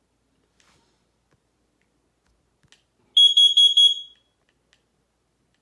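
First Alert CO400 carbon monoxide alarm sounding four quick, loud, high-pitched beeps about three seconds in. This is the four-beep pattern a CO alarm gives to signal carbon monoxide, here set off as a test.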